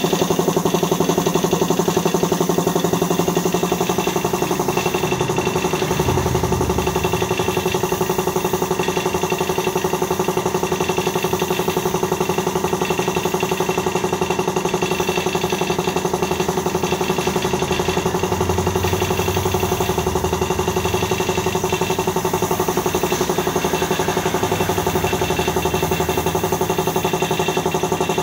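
A machine's motor running steadily with a constant hum, changing slightly in its low tone now and then.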